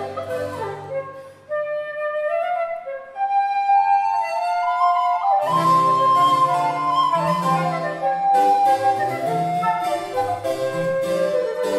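Baroque trio sonata played on transverse flute, recorder and harpsichord. The low part falls silent about a second and a half in, leaving the two wind lines alone, and comes back in with the full texture about five and a half seconds in.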